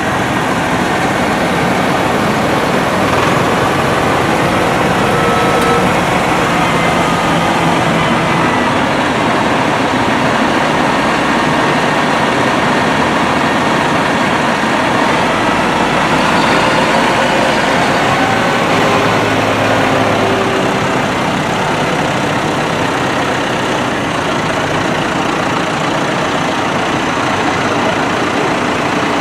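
Diesel engines of several large farm tractors running as they drive past one after another, a steady, loud engine noise.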